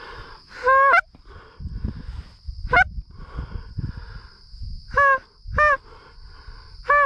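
Canada goose honks: five loud, single calls spaced one to two seconds apart, each rising and breaking sharply at the end.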